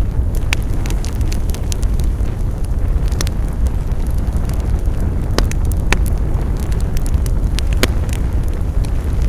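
Wood fire burning with a steady low rumble and scattered sharp crackles and pops from the burning wood.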